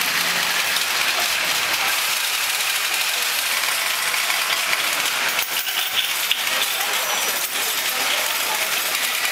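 Continuous clatter of many balls rolling and clicking along the metal rails and spiral towers of a kinetic model of internet routing, where each ball stands for a data packet passed from router to router.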